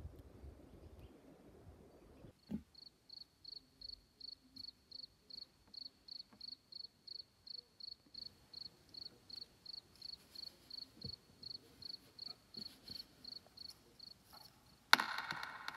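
A cricket chirping steadily, about three short high chirps a second. Near the end a sudden loud sound cuts in over it.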